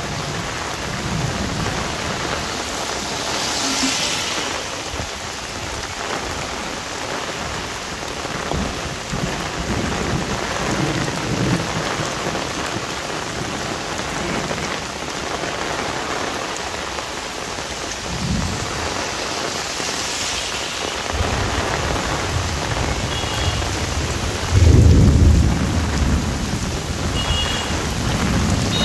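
Heavy monsoon rain pouring steadily onto an umbrella and the ground. Near the end comes a louder low rumble of thunder.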